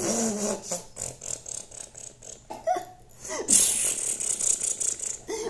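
A person's voice making silly non-word mouth noises for a hand puppet: sputtering, blowing sounds and short vocal squeaks that slide up and down, with a longer hissing blow about three and a half seconds in.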